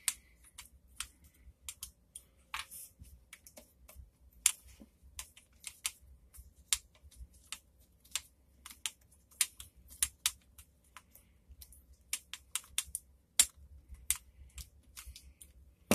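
Hand screwdriver backing screws out of an e-bike battery pack's plastic case: a run of irregular sharp clicks and ticks from the tool, screws and case.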